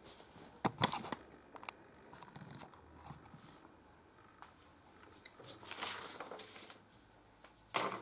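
Faint handling noises at a work desk: a few sharp clicks and knocks about a second in, then a soft rustle around two-thirds of the way through and another click near the end.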